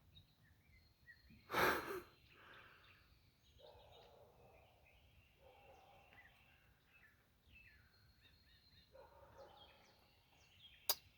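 Faint outdoor ambience with birds chirping, broken by one short, loud exhale about a second and a half in and a single sharp click near the end.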